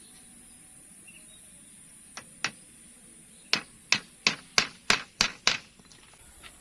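Hammer blows: two single strikes, then a steady run of seven at about three a second.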